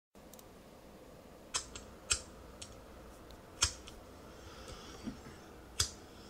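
About half a dozen short, sharp clicks and taps at irregular spacing over a faint steady hiss.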